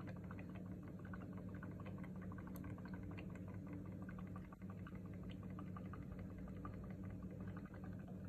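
Magenta ink bottle upended in the ink tank of a Canon Pixma G3420, faintly bubbling with many small irregular ticks as air rises into it while the ink drains into the tank. A steady low hum runs underneath.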